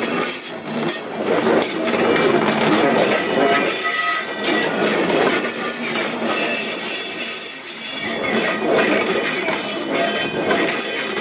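A long rake of china clay hopper wagons rolling past with a steady rumble and clatter of wheels on rail. Their wheels squeal in high, thin tones that come and go, strongest about two seconds in and again near the end.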